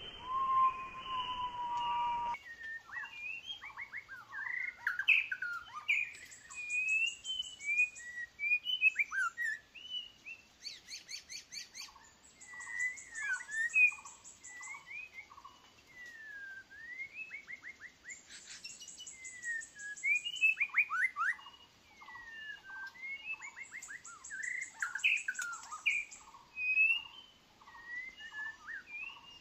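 White-rumped shama singing: a long run of varied whistled phrases with rapid strings of short repeated notes and high fast trills, beginning about two seconds in.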